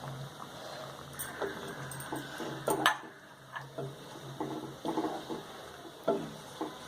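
A spoon stirring in a cooking pot of liquid curry, with scattered clinks and knocks against the pot, the sharpest about three seconds in. A low steady hum runs under the first half.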